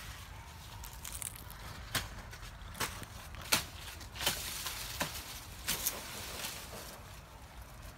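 Footsteps crunching on dry grass and leaves: a sharp crackling step about every three-quarters of a second, starting about two seconds in, over a low steady rumble.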